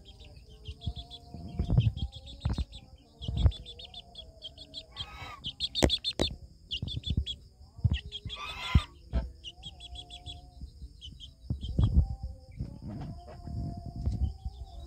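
Young Bangkok game chicken making soft, wavering low calls, with repeated bursts of high chirping throughout. Scattered dull knocks, and two short rustling bursts near the middle.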